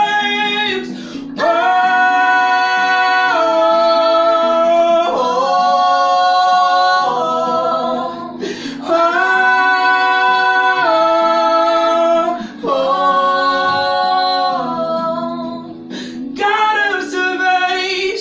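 A solo voice singing long held notes over guitar accompaniment, in phrases of a second or two with short breaths between.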